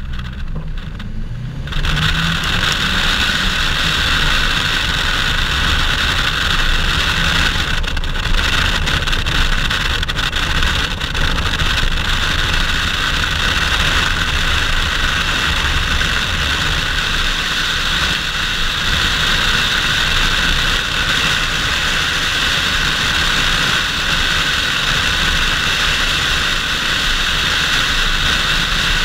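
Car engine revving up as it pulls away, with the pitch rising over the first two seconds. Then a steady rush of wind over the outside-mounted camera covers a low engine drone for the rest of the time.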